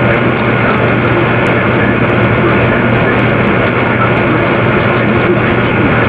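Loud, steady droning noise with a constant low hum beneath it, unchanging throughout, with no distinct beats or words.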